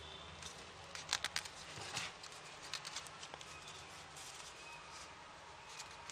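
Light crackling and rustling of a sheet of origami paper being folded and pressed by hand, in short irregular bursts, the loudest cluster about a second in.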